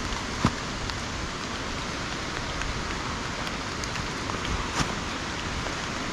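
Steady hiss of falling rain mixed with fast-running water, with a few sharp taps scattered through it, the clearest about half a second in and near five seconds.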